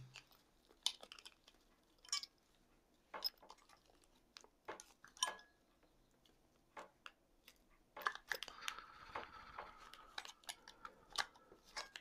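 Faint scattered clicks and taps of a small white plastic plug-in power adapter being handled and turned over, becoming a denser run of rustling and handling noises about eight seconds in.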